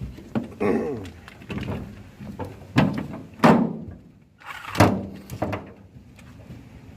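Heavy thunks and clunks of metal engine parts and tools being handled during a 305 V8 teardown, about four louder knocks among smaller ones.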